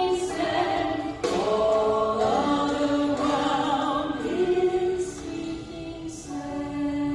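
Two women singing a Christian worship song into microphones, heard through the sound system of a large church sanctuary.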